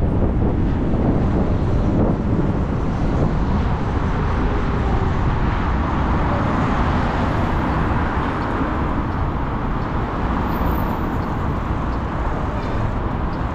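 Steady wind rush and road noise on the microphone while riding a motorbike at speed in traffic.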